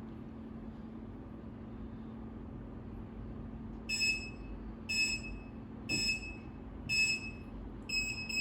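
CHKOSDA CH3387 LED wall clock's buzzer giving a short high-pitched beep once a second as the countdown nears zero, then beeping faster near the end as the countdown runs out and the alarm starts. A steady low hum runs underneath.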